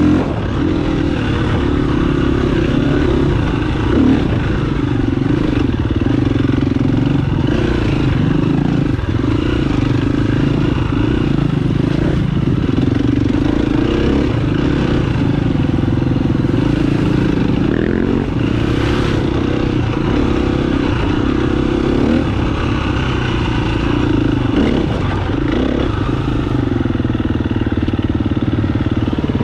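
Dirt bike engine running under way, its pitch rising and falling as the throttle is opened and closed.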